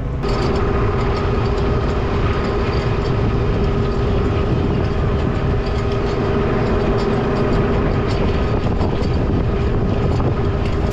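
New Holland T7.210 tractor running steadily under load while pulling a plough, its engine noise carrying a steady high tone throughout.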